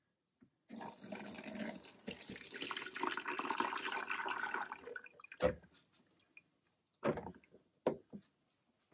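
Liquid poured out of a glass jar into a pot for about four seconds, then a few short knocks as the jar and pot are handled.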